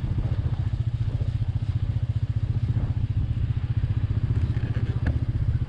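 Royal Enfield Meteor 350's single-cylinder engine running at a steady speed while riding, a fast even pulsing thump with no change in pitch.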